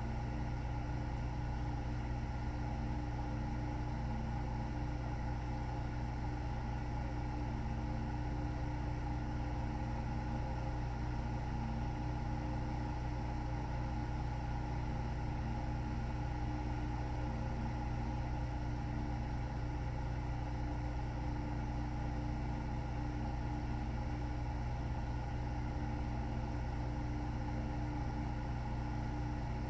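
Steady, unchanging machine hum with a low rumble and a few fixed tones; no rise and fall of breathing is heard.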